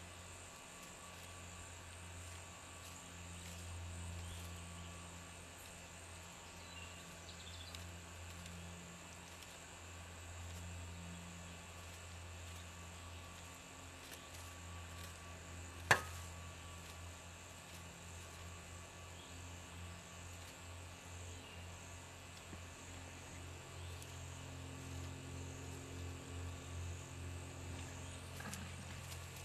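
Faint, steady outdoor background with a low hum, and a single sharp knock about halfway through.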